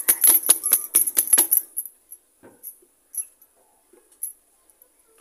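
Bangles on a working wrist jingling in quick rhythmic clinks, about five a second, as the hand pats and folds dough on a wooden board. About a second and a half in they stop, leaving a few scattered light clinks as the hand dips into dry flour.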